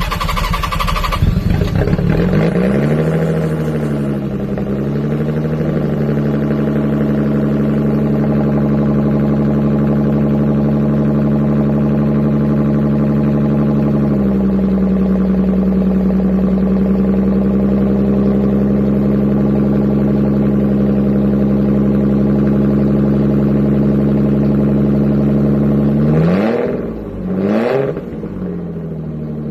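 1991 Nissan 300ZX's V6 engine starting and running, now getting fuel after a new fuel pump module and relay. The idle wavers for a few seconds, settles, steps down a little about halfway, and the engine is revved briefly twice near the end.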